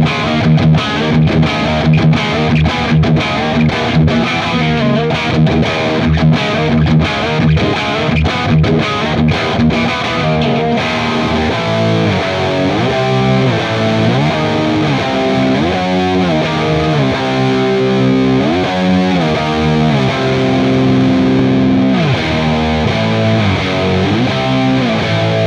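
Overdriven electric guitar (an SG Custom-style guitar) played through vintage Marshall valve amp heads: a 1979 JMP 2203 Master Lead, then a JTM45 handwired reissue and a 1969 JMP Super Bass pushed by a J Rockett Archer clean boost. For the first ten seconds or so it plays choppy chords cut by short gaps, then switches to sustained lead lines with string bends.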